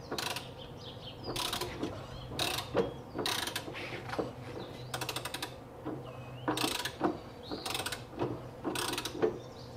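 Ratchet and 36 mm socket on the generator pulley nut, worked in repeated short strokes that click irregularly as the Porsche 356A engine is turned over by hand toward top dead centre.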